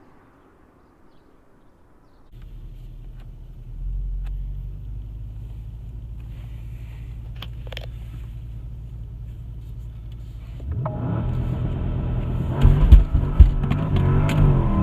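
Porsche Panamera Turbo Sport Turismo's twin-turbo V8 comes in with a steady low rumble about two seconds in and holds there, in the run-up to a launch-control start. About eleven seconds in it gets much louder under hard acceleration, its pitch rising and dipping, with a few sharp cracks at the loudest point.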